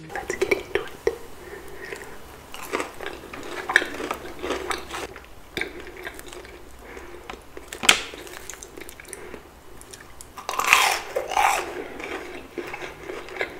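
Close-miked eating: McDonald's chicken nuggets and French fries handled, dipped in sauce and chewed, with scattered crunches and mouth sounds. There is a sharp click about eight seconds in and a louder noisy stretch around eleven seconds.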